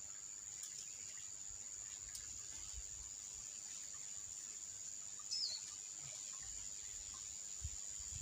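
A steady, high-pitched insect drone, with one short falling bird chirp about five seconds in.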